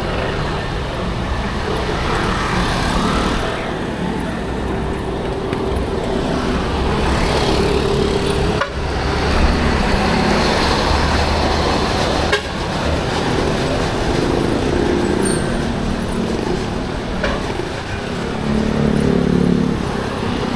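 Evening rush-hour road traffic heard from a moving bicycle: motorcycle and car engines passing, over a steady low rumble. Two sharp clicks come about 9 and 12 seconds in.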